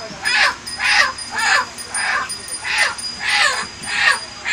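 A chicken held in someone's hands, squawking in distress over and over, about two harsh, falling calls a second.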